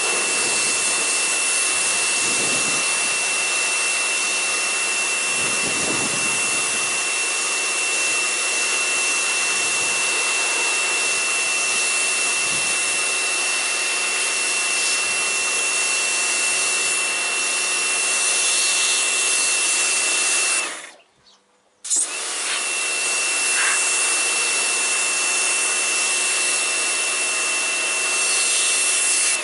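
Pressure washer running with a steady high whine, its jet spraying onto a mower. It cuts out for about a second some two-thirds of the way through, then starts again, and stops at the very end.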